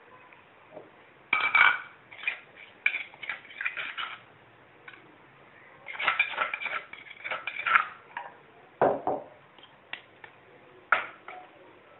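A utensil scraping and clinking against an earthenware mortar and a ceramic plate as pounded paste is scooped out. There are two runs of quick scrapes and clinks, then a few single knocks near the end.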